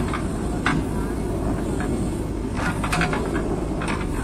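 Diesel engine of a JCB 3DX backhoe loader running steadily while its backhoe bucket digs into soil, with a few short knocks and rattles about a second in, around three seconds in and near the end.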